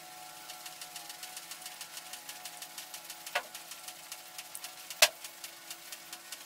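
Small metal parts clicking as a tiny brass fitting is worked by hand into the brass-clad cylinder of a model steam engine, with a soft click about three seconds in and a sharp one about five seconds in. A faint, fast, even ticking runs underneath.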